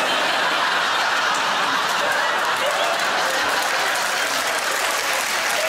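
Studio audience applauding, a steady dense clapping that starts right after the punchline.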